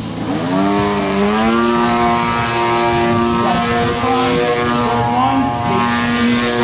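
Radio-controlled model airplane's engine and propeller in flight. The pitch sags at the start, climbs over the first second or so as the throttle opens, then holds steady with small wavers.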